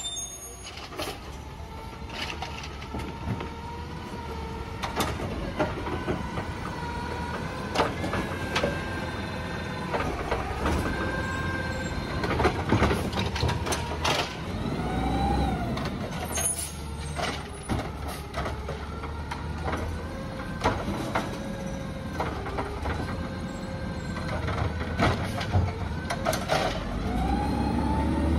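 Automated side-loader garbage truck working a curbside bin: the diesel engine runs and rises in pitch as the hydraulic arm whines, grabbing, lifting and dumping the cart, with repeated clanks and knocks of the cart and arm against the body. An air-brake hiss comes through as well.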